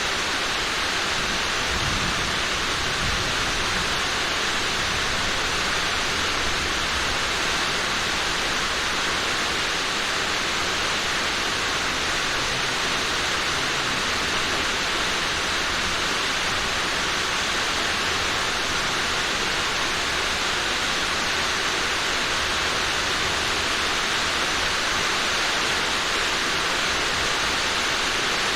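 Steady rain falling on a roof, an even, unbroken hiss, with a faint low rumble about two to three seconds in.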